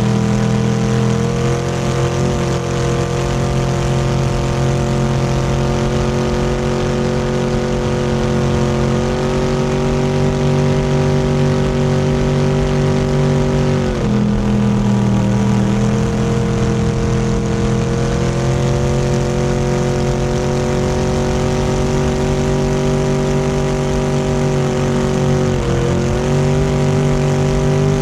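Motorboat engine running steadily under way, its pitch dipping briefly about halfway through and again near the end before climbing back over a second or two.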